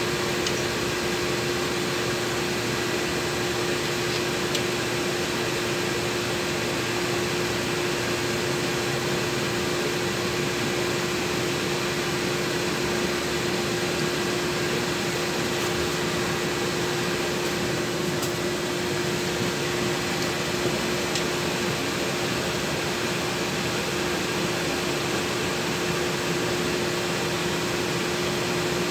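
Cabin noise inside a LiAZ 6213.21 articulated city bus standing in traffic: a steady machine drone and hiss with one constant mid-pitched hum throughout.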